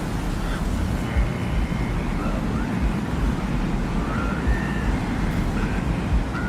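Sci-fi desert ambience: a steady low rumble, with faint short high tones now and then.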